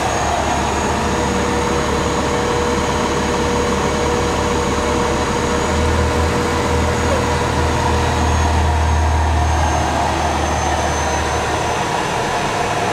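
Truck engine and road noise heard inside the cab while driving: a steady rumble that grows deeper and heavier from about halfway through for several seconds.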